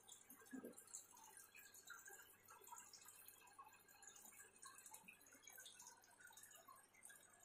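Faint, scattered dripping and trickling of water, with one soft low bump about half a second in.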